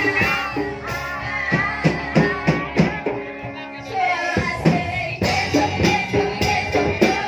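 Live ska band playing: a singer over a steady drum beat with guitar and percussion. About halfway through the music briefly thins out, then the full band comes back in on a loud hit.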